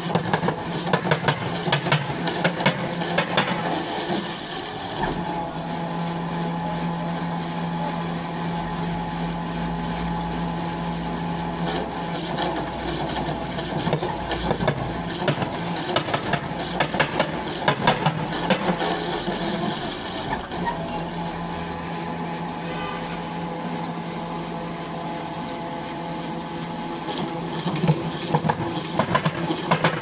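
Winch motor of a tripod pile driver running with a steady hum for two long stretches, hoisting the heavy cylindrical shovel head on its wire rope. Between those stretches come irregular metallic knocks and clanks from the rig and the shovel head at the hole.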